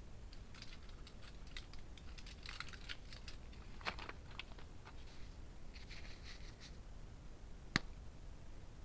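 Roasted multani mitti (fuller's earth clay) being crunched: bursts of dry crackling and snapping, with a single sharp crack near the end.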